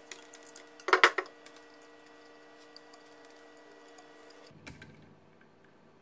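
Handling noise: a plastic snail-type car horn picked up off a wooden table, with one short loud clatter about a second in and a fainter click near the end.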